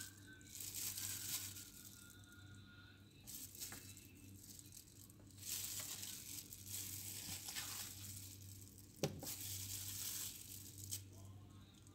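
Plastic glove and plastic bag rustling and crinkling in irregular bursts, with one sharp click about nine seconds in, over a faint steady low hum.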